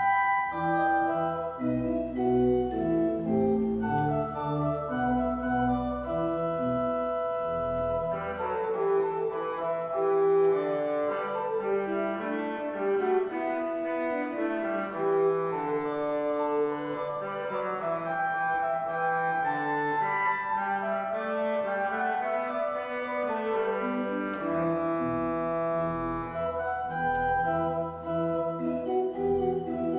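Church organ playing a prelude of sustained chords; the low pedal notes drop out about a quarter of the way in and come back near the end.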